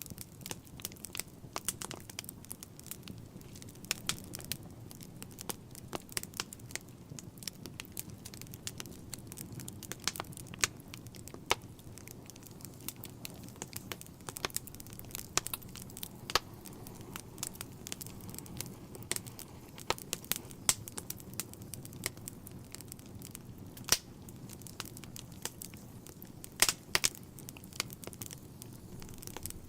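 Wood fire burning in a fireplace: irregular crackles and sharp pops from the logs over a steady low background, with a few louder pops, two of them close together near the end.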